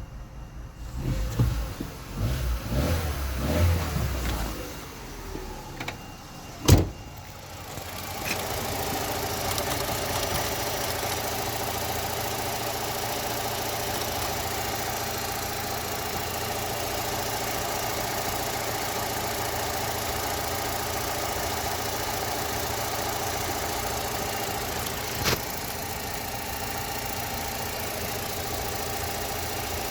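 Opel Astra H 1.4 petrol engine starting about eight seconds in and then idling steadily, after some uneven knocking and handling noise and one sharp bang just before it. A single brief click comes near the end. The car is being recorded for a knocking sound from under the engine.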